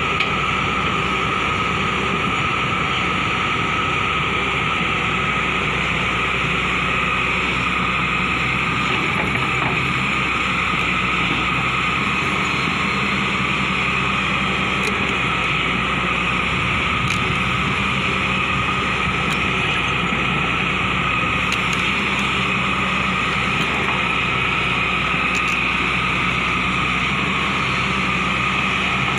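Hyundai excavator's diesel engine running steadily under work, with a constant high whine over the low engine rumble.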